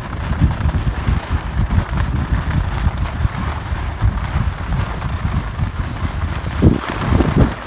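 Wind rumbling and buffeting on the microphone of a camera carried by a skier going downhill, over a steady hiss of skis sliding on packed snow. A couple of stronger gusts come near the end.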